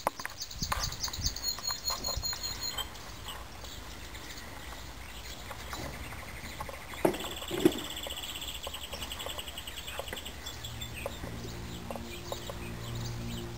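Small birds singing in quick repeated trills over outdoor ambience, with a chicken clucking a couple of times about seven seconds in. Steady music comes in near the end.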